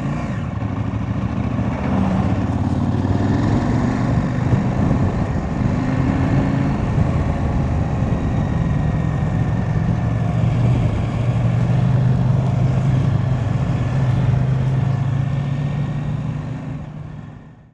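KTM 890 Adventure R's parallel-twin engine running steadily as the motorcycle rides along a gravel road, with wind and tyre noise, fading out near the end.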